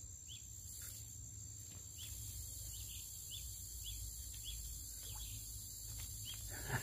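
Faint outdoor ambience: insects buzzing steadily at a high pitch, with a bird's short falling chirps repeated about twice a second over a low steady rumble.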